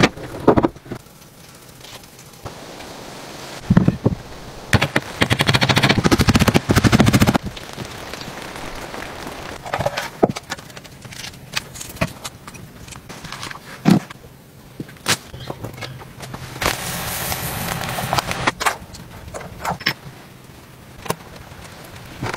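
A series of separate handwork and cookware sounds: short knocks and clicks, with a loud rasping stretch lasting a few seconds about four seconds in and a softer one near the end.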